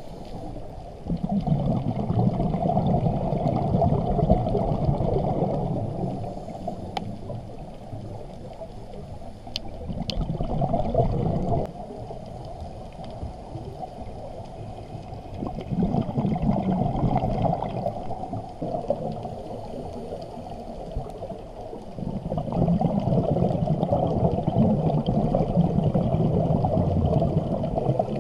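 Scuba diver's exhaled regulator bubbles heard underwater: four long, muffled swells of bubbling, each a few seconds long, with quieter pauses between breaths.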